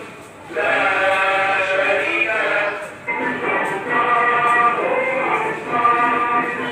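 Islamic religious chanting by male voices playing from a television: long, held, ornamented lines. It starts about half a second in, with a short break around three seconds.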